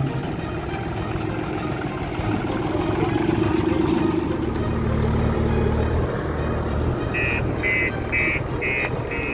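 Diesel engine of a Deutz-Fahr farm tractor running as it drives. From about seven seconds in, a reversing alarm beeps steadily about twice a second from a JCB telehandler.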